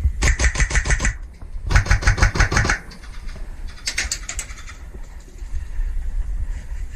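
Airsoft guns firing three rapid full-auto bursts, each a quick even string of shots about ten a second: two of about a second each, then a shorter one.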